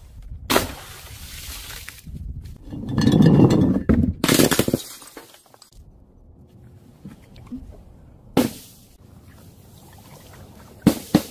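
Objects dropped from a height striking the ground in turn: a sharp impact, then a loud wet splatter of paint bursting out across the ground, another single impact, and several quick knocks near the end.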